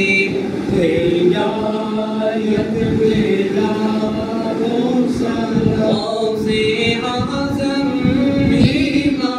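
Unaccompanied devotional chanting by male voices, a slow melody of long held notes sung in unison, in the style of a Mawlid qasida or naat in praise of the Prophet.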